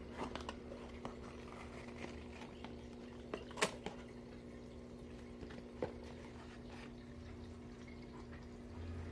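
Cardboard shipping box being handled and its flaps opened, giving scattered light clicks and taps, the sharpest about three and a half seconds in. A steady low hum runs underneath.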